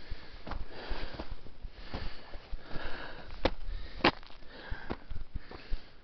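A hiker breathing hard, about one breath a second, while pushing through dry scrub, with footsteps on gravel and brush scraping and snapping; one sharp crack about four seconds in.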